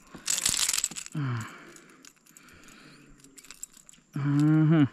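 A short burst of rattling noise, then quiet with faint ticks, and near the end a man's drawn-out vocal sound that falls in pitch as it ends.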